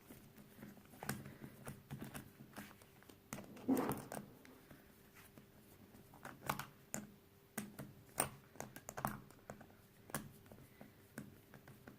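Irregular light clicks and taps of a screwdriver working the core screw of a plastic Square-1 puzzle cube, with the cube's pieces knocking as it is handled.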